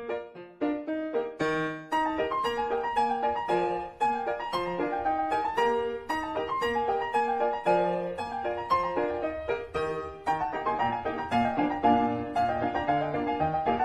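Background piano music: a string of struck notes that thickens into a fuller accompaniment about two seconds in.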